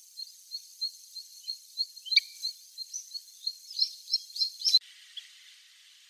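Kentish plover calling: a series of short, high notes at about three a second that grow louder and stop abruptly just before five seconds in.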